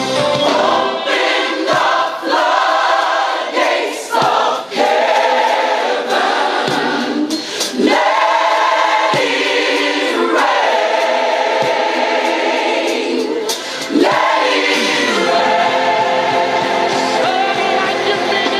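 A choir singing gospel worship music, with voices holding and sliding between notes.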